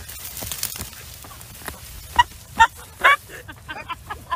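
Rustling of garden plants, then a few short vocal outbursts about two to three seconds in.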